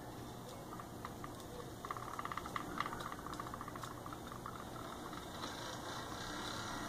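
Small battery-driven DC motor spinning a propeller on a homemade propeller car, running with a faint whir, with a rapid rattle of small clicks about two to three seconds in.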